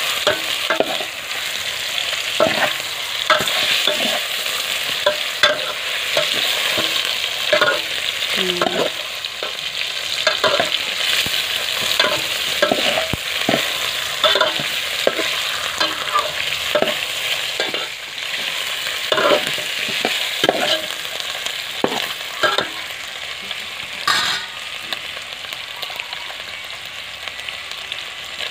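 Fish steaks sizzling in hot oil in a stainless steel pot, with a metal ladle scraping and knocking against the pot now and then as the pieces are stirred and turned. The sizzle gets somewhat quieter near the end.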